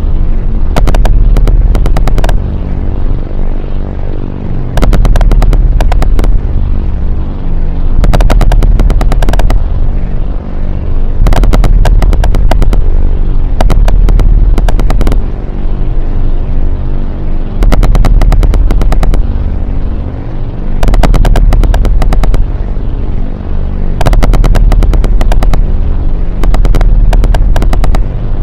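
Harsh noise / power electronics music: a loud, distorted low drone cut by bursts of rapid crackling clicks, each about a second and a half long, recurring roughly every three seconds.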